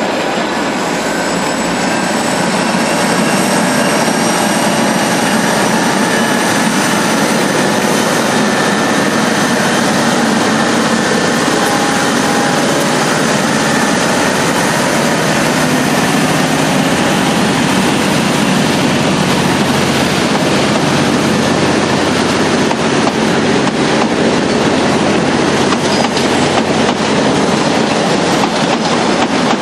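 Diesel locomotive in Virgin livery running through the station at close range: a steady loud rush of engine and wheels on rail, with a thin high-pitched whine that rises slightly over the first several seconds.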